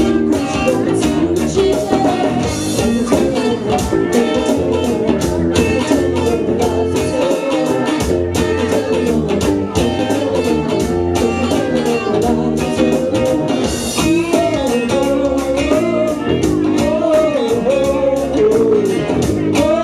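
A rock band playing a bluesy song: electric guitar over a steady drum beat, with singing in places.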